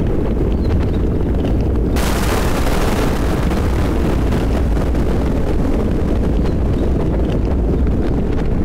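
Thunderstorm with rain: a steady deep rumble of thunder under scattered raindrops, then a sudden thunderclap about two seconds in whose noise slowly dies away.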